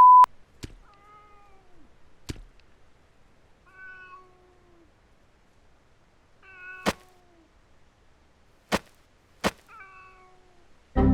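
A cat meowing four times, each a short call falling in pitch, with several sharp clicks in between. A brief loud beep opens it.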